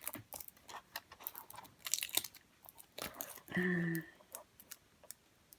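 Plastic packaging and small bags from a diamond painting kit rustling and crinkling in short, scattered bursts as they are handled, with a brief low hum about three and a half seconds in.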